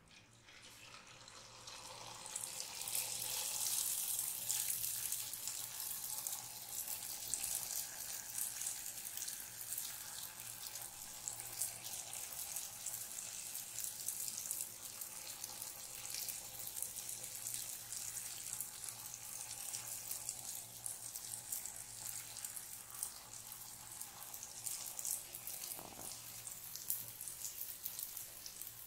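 Jalebi batter frying in hot oil in a pan: a steady sizzle with fine crackling. It swells over the first few seconds as the batter spirals are piped in, then holds.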